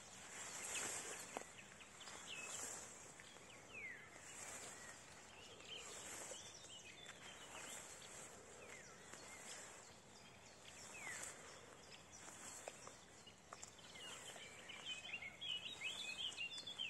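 Slow footsteps swishing through tall meadow grass, about one step every two seconds, with birds chirping and singing around, most busily near the end.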